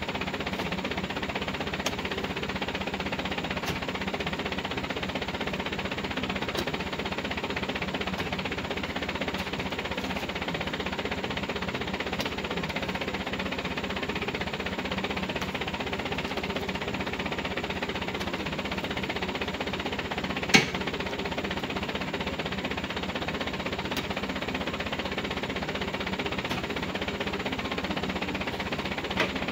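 Light truck's engine idling steadily with a low, even knock. One sharp knock about two-thirds of the way through, and a few faint clicks.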